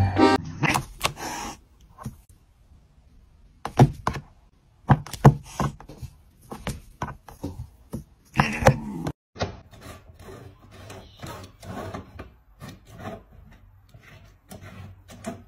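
Irregular short knocks and taps mixed with scraping and rubbing as cats paw at and move against household objects: a cardboard scratcher and a plastic jug.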